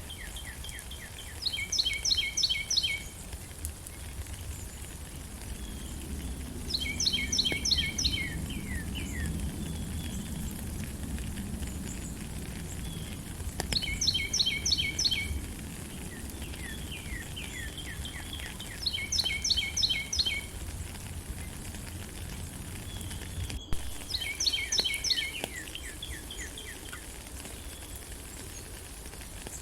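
A songbird repeating the same phrase five times, about every five to six seconds: a few quick downslurred notes, then a fast run of short high notes. Steady rain hiss and a low rumble run underneath.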